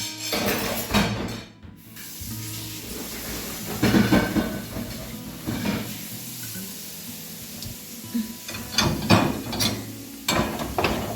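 Plates knocking and clinking as they are set one by one into a dishwasher's lower rack. The clatters are separate, the loudest about nine seconds in, over a steady hiss.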